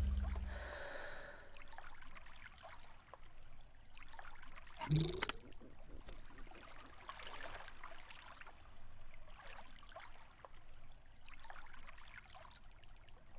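The music's last notes die away in the first second. Then small waves lap softly against a rocky shore, with one short, sudden sound about five seconds in.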